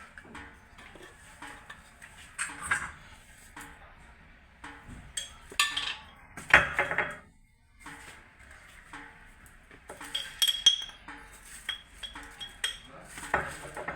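Kitchen dishes and cutlery clattering: irregular clinks and knocks of utensils against pots and plates, with the loudest clatter about halfway through.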